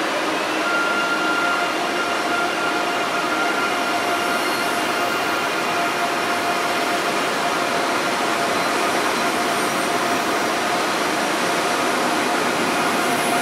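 Deutsche Bahn ICE high-speed train moving slowly alongside a station platform: a steady whine from its electric traction equipment over the hiss of the train rolling past. The whine rises briefly at the start, then holds level.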